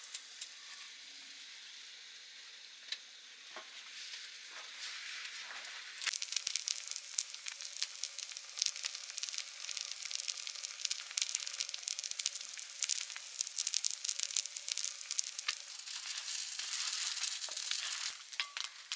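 Batter-fried food (jeon, a Korean savoury pancake) sizzling in hot oil in a frying pan. About six seconds in the sizzle turns suddenly louder, with dense crackling, and it eases off near the end.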